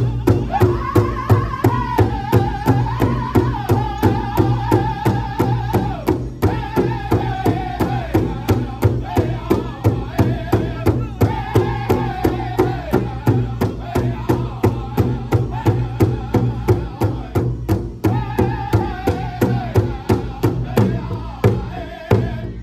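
Powwow drum group singing in unison in high voices while striking a large hide-covered drum together with beaters in a steady, even beat of about three strokes a second. The singing breaks briefly twice between phrases while the drumbeat carries on.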